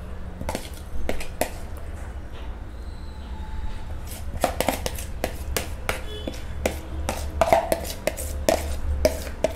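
A spoon scraping and tapping inside a plastic mixing bowl as a wet chopped-vegetable topping is scraped out: a run of short clicks and scrapes that grows busier about halfway through, over a low steady hum.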